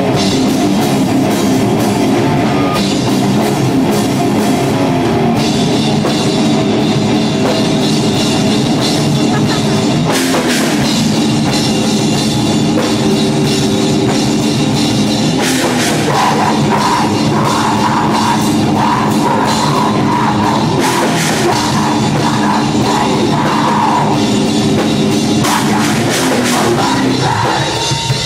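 A rock band playing live and loud, with electric guitars and a drum kit; about halfway through a higher wavering line rides over the mix for several seconds.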